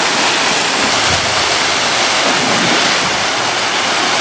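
Water cascading and gushing into a swimming pool from waterslide tube exits and a stone-wall waterfall: a loud, steady rush of splashing water.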